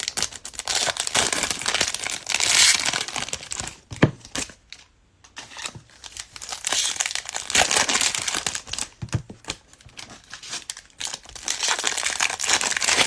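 Plastic trading-card pack wrappers being torn open and crinkled by hand, in bursts of rustling with short pauses and a sharp tap about four seconds in.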